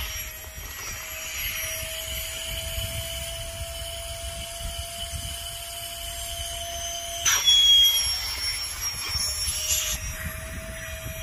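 Small electric air pump running with a steady whirring hum as it inflates an air mat. About seven seconds in a sharp click and a louder clatter cut in, the hum drops out for a couple of seconds, then resumes.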